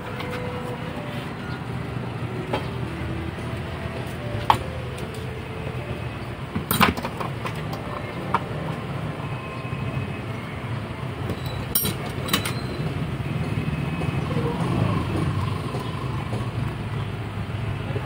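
Steady low background rumble like street traffic, with a few sharp clicks and knocks from pliers and side cutters handling the tower fan's plastic housing and wiring.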